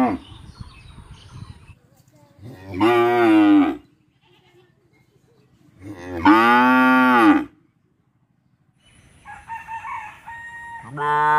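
Cows mooing: three long moos, each rising then falling in pitch, a few seconds apart, the last starting near the end. Hungry cows calling for hay.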